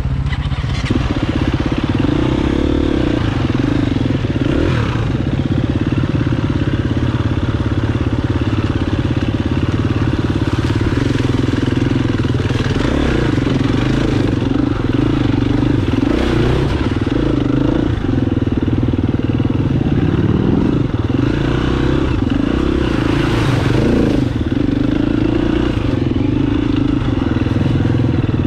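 Dirt bike engine running under way on a trail ride, its pitch rising and falling several times.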